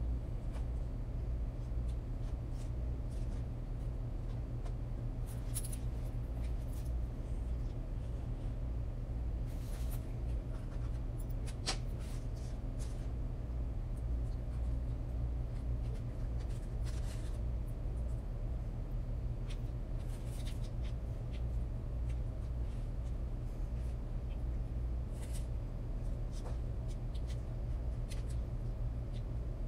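Hands and a fork working pie-crust dough on parchment paper: faint scratching and scattered light taps over a steady low hum.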